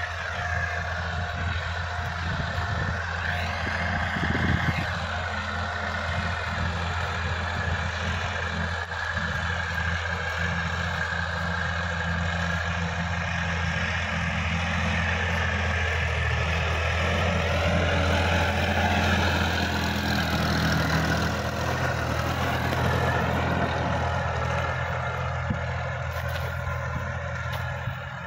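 Sonalika DI-50 RX tractor's diesel engine running steadily under load as it pulls a rotavator through the soil.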